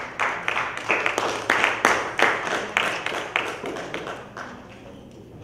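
Congregation clapping, the separate claps plain to hear, thinning out and dying away about four seconds in.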